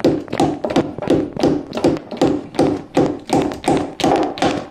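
A hammer striking the timber of a staircase over and over, about three blows a second, knocking it across a little at a time into position.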